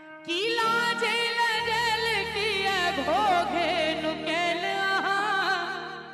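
A woman singing a Maithili wedding song live into a microphone, holding long notes with a wavering vibrato and bending pitch, over steady held electronic keyboard tones.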